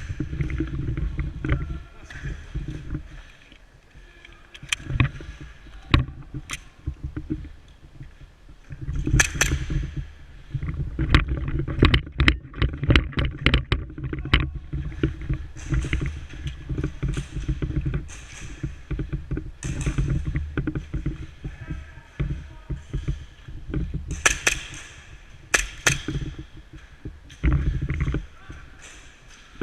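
Airsoft gunfire during a game: sharp cracks, a rapid string of them about eleven seconds in and single shots later, over the thumping and rustling of a player moving with a body-worn microphone.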